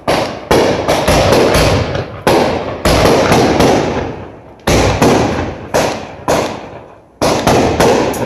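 Aerial fireworks going off in a rapid, irregular barrage of loud bangs, often several in a second, each trailing away in an echo, with a couple of short lulls between volleys.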